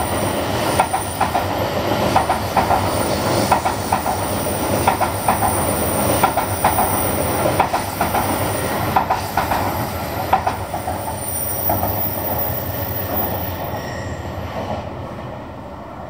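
Trains moving through a station's track area: an E7 series shinkansen pulling out and a 415 series 800 EMU arriving, with a steady rumble and hiss and irregular clicks of wheels running over rail joints and points. The sound fades over the last couple of seconds as the shinkansen leaves.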